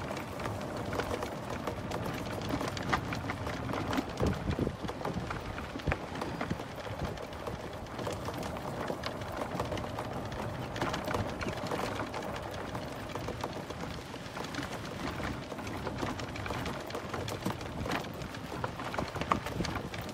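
Golf cart driving along a dirt path: tyres crunching and rattling over the ground, with scattered small knocks and a faint steady hum underneath.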